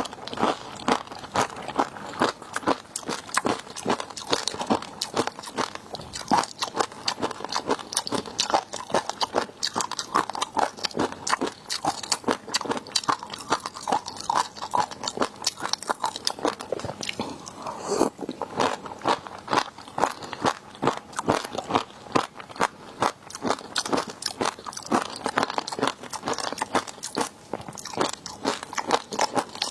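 Close-miked eating of seafood: continuous crunchy biting and chewing, with many sharp crackles a second.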